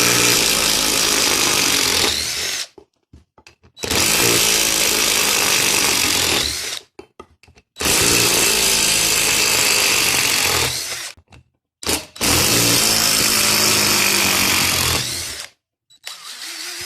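A cordless DeWalt power tool runs four times, about three seconds each, backing out lag screws from wood. Its pitch rises near the end of each run as the screw comes free.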